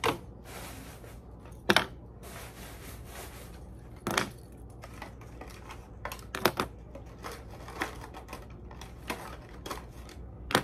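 Lead pencils clicking and clattering as they are dropped into an organizer one at a time, a sharp click every second or two. Soft rustling fills the first few seconds.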